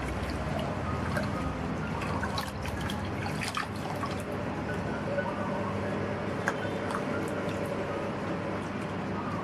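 Water trickling and dripping, with scattered small clicks and ticks.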